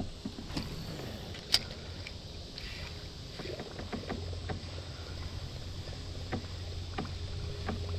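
Handling noise in a kayak on the water: a low steady rumble with scattered small clicks and knocks, the sharpest about a second and a half in.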